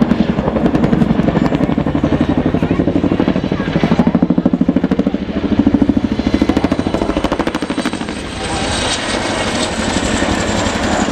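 Boeing Chinook tandem-rotor helicopter flying a display pass, its two three-bladed rotors making a loud, fast, even chop. About eight seconds in, the chop gives way to a smoother rushing noise.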